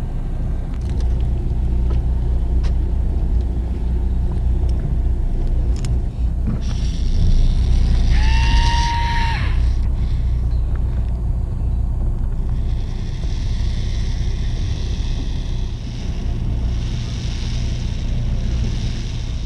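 Fishing boat's engine running with a steady low rumble. About halfway through a brief whine rises and then holds for a second or two, and a high hiss comes and goes in the second half.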